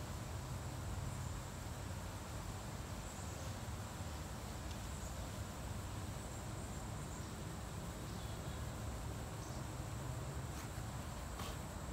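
Insects in the garden keep up a steady high-pitched drone over a low rumble, with a few faint ticks near the end.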